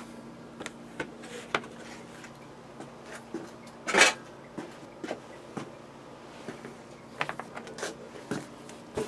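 Handling noises: scattered light clicks and knocks of hard objects being moved about, with one louder rustling knock about four seconds in, over a faint steady hum.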